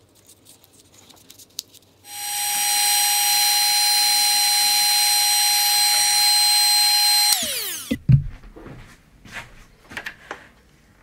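Electric heat gun shrinking heat-shrink tubing over a wire connector: its fan motor runs with a steady whine for about five seconds, then is switched off and winds down in a falling pitch. A knock comes just after it stops, with light handling clicks before and after.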